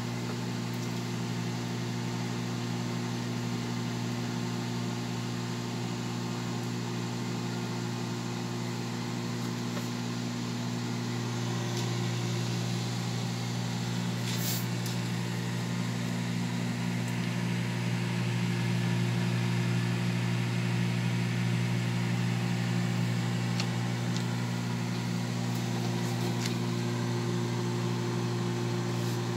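Hamilton Beach countertop microwave oven running mid-cycle, a steady electrical hum with a low buzzing tone. A single sharp click comes about halfway through.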